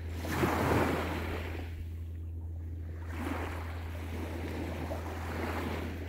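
Small waves of a calm sea washing onto the beach, two swells of surf: the first and loudest about half a second in, the second building from about three seconds in.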